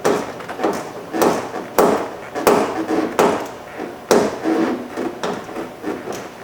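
Socket ratchet being worked back and forth to tighten a door handle mounting bolt, with a sharp clicking stroke about every two-thirds of a second.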